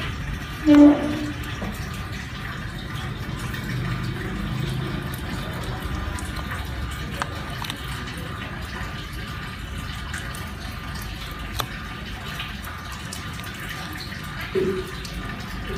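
Petrol mixed with water trickling steadily out of the opened drain of a Honda Tiger's carburetor float bowl. This is the contaminated fuel being drained off, the cause of the engine stalling. A short pitched sound is heard about a second in, and a fainter one near the end.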